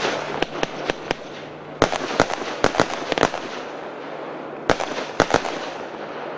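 Royal Fireworks 'Sunshine in Darkness' (RFC 1481) firework firing a series of shots that burst in the air. Sharp bangs come in three clusters, with a steady hiss beneath.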